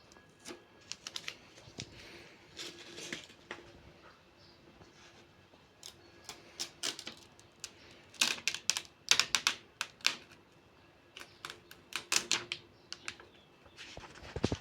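Irregular sharp clicks and taps of hard objects being handled, coming in quick clusters about halfway through and again near the end.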